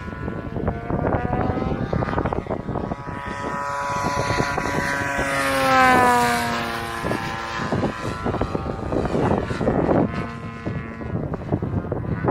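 Twin-cylinder DA70 petrol engine of a large RC aerobatic plane running in flight. Its pitch climbs, it is loudest about six seconds in, then the tone drops away as the plane passes.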